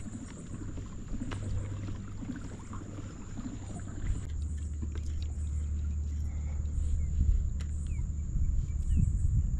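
Kayak underway on the water while trolling: a low steady hum of wind and water on the microphone that shifts and grows louder about four seconds in, with scattered small clicks and a few faint bird chirps.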